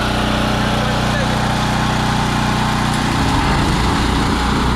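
Honda GX390 single-cylinder petrol engines running pressure washers, under the steady hiss of high-pressure water spraying from the gun. About three seconds in, the engine note turns uneven and wavers for a moment before steadying.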